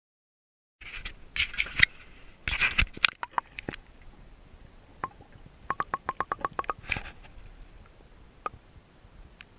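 Water splashing and sloshing, heard through an underwater camera, as hands hold a northern pike in the water for its release, starting about a second in; a quick run of about ten sharp ticks follows in the middle.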